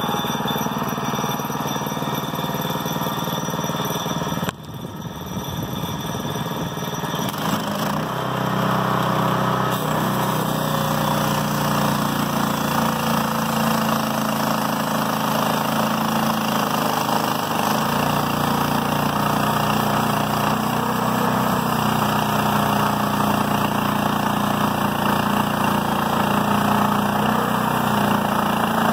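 Gasoline engine of a portable band sawmill running under load as the band blade cuts through white oak, a steady drone. The sound drops suddenly about four and a half seconds in and builds back up over the next few seconds.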